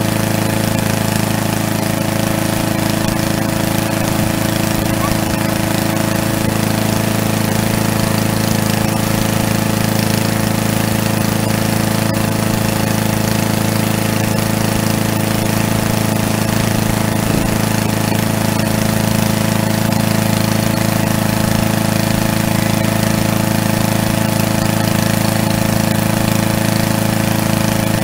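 Small gasoline engine of a walk-behind lawn mower running steadily at one constant speed while the mower stands still.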